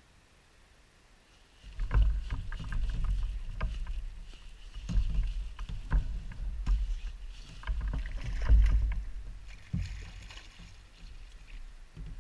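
Low thumps and knocks on a bass boat's deck and hull, mixed with irregular sharp clicks, as an angler sets the hook and fights a fish on a baitcasting rod and reel. The noise starts suddenly about a second and a half in, is loudest near the middle, and eases off near the end.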